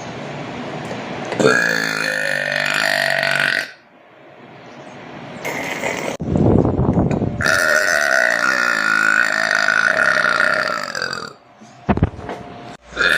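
A woman burping: two long, loud, drawn-out burps. The first starts about a second and a half in and lasts about two seconds; the second starts after a rough, noisy onset about six seconds in and runs about four seconds.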